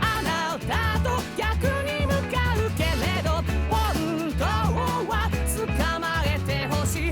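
Upbeat pop-rock theme song: a male singer over a band, with a pulsing bass line.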